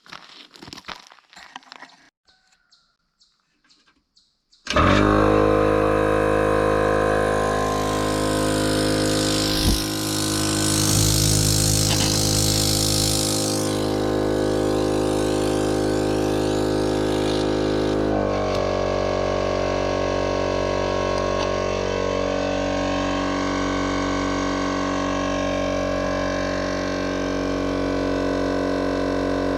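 Air Armor 12-volt tire compressor switching on about four and a half seconds in after a few faint clicks, then running steadily with a loud, even motor-and-piston hum while it inflates a tire; its tone shifts partway through.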